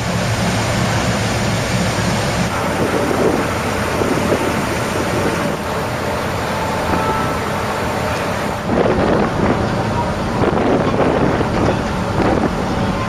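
A car driving: steady engine hum under tyre and wind noise, a little louder and rougher about nine seconds in.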